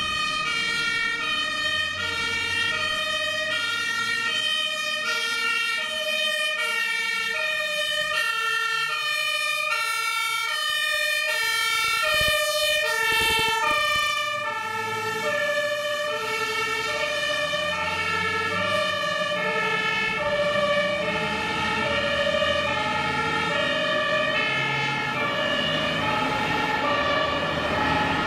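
German two-tone fire engine siren (Martinshorn) sounding on fire trucks driving under emergency signal, the high and low notes alternating steadily. The trucks' diesel engines rumble underneath as they pass.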